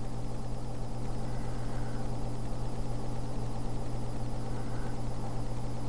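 Computer cooling fans running with a steady low hum and a faint hiss.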